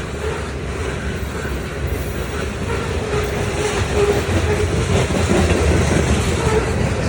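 A train running past with a steady rumble of wheels on rail, getting somewhat louder about four seconds in.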